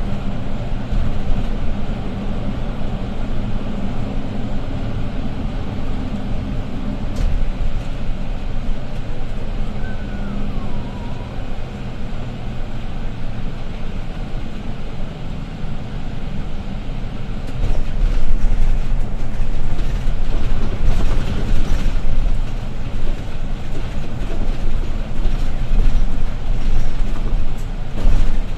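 Setra S415 LE business bus under way, heard from inside the cabin: a steady diesel engine drone with road rumble. About two-thirds of the way through it grows louder, with rattling.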